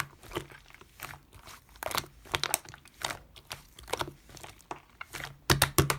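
Slime being worked by hand, making irregular crackling clicks and pops, with a quick cluster of louder pops near the end.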